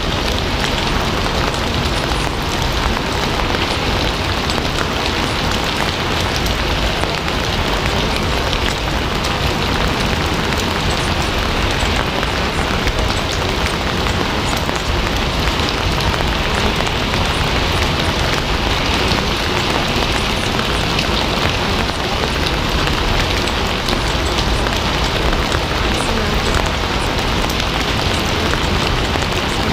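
Steady rain falling on a surface: an even, unbroken hiss with dense, fine patter of drops.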